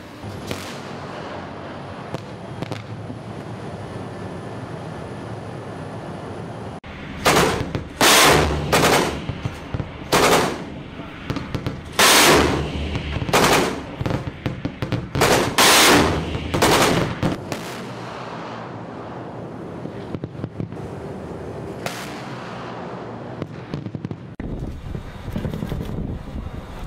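Shipboard guns firing in about ten loud bursts over some ten seconds, some sharp and short and some drawn out, over a steady rush of wind and ship noise.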